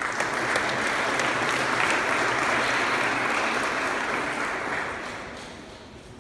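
Audience applauding, starting suddenly and fading away near the end.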